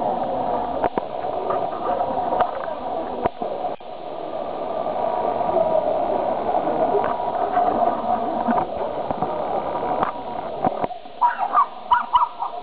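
Many voices chattering at once in a large indoor hall, with a few sharp knocks. Near the end the chatter thins and a handful of short, high calls stand out.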